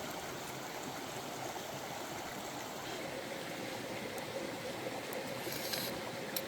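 Running water rushing steadily, as of a stream or small waterfall, with a few faint clicks near the end.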